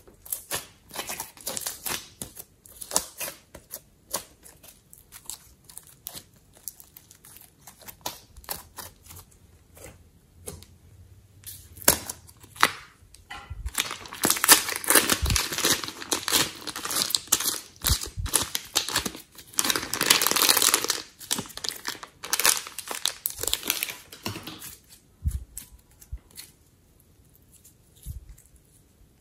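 Sticky slime squeezed and stretched by hand, making small wet clicks and pops. Through the middle, for about ten seconds, a plastic piping bag crinkles loudly as it is squeezed to press clay out of it, followed by softer squishing of the clay.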